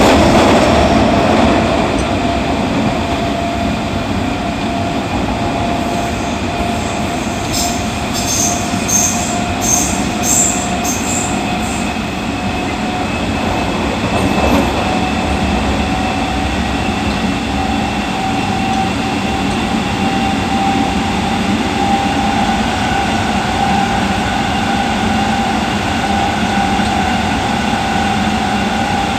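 Running sound inside a Nagoya Municipal Subway 6000-series car with its original Toshiba GTO-VVVF inverter and traction motors: wheel and track rumble under a steady whine that slowly rises in pitch. A run of brief high squeaks from the wheels comes about eight seconds in.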